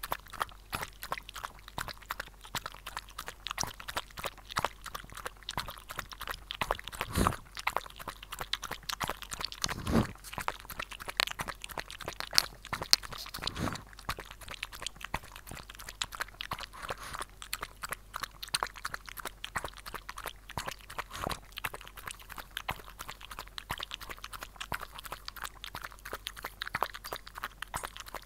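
Shih Tzu rapidly lapping broth from a stainless steel bowl, a quick run of wet tongue clicks and slurps close to the microphone, with a few dull knocks as the bowl is bumped.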